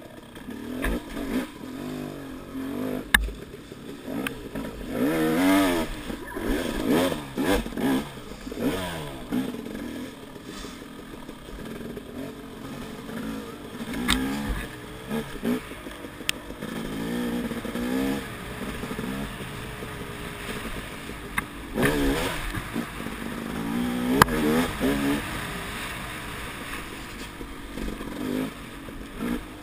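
Dirt bike engine revving up and down in repeated throttle bursts while riding a woods trail, with a couple of sharp knocks along the way.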